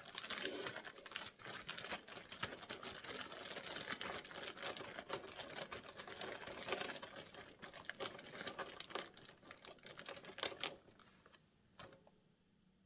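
Wooden peg dolls clattering and clicking against each other as a hand rummages through them in a bag: a rapid, uneven run of small knocks that dies away about eleven seconds in.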